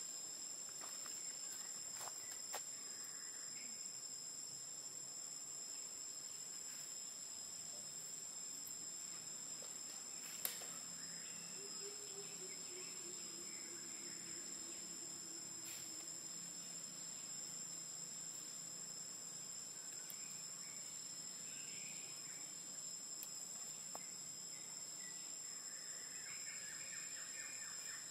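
Steady high-pitched drone of forest insects, two even tones held throughout, with a single sharp click about ten seconds in.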